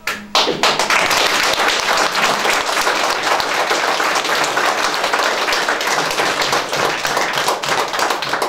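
An audience applauding: many hands clapping in a steady, dense patter that starts abruptly and holds at an even level throughout.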